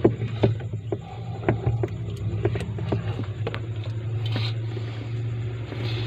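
Scattered light clicks and taps of refrigerator wiring and connectors being handled, over a steady low hum.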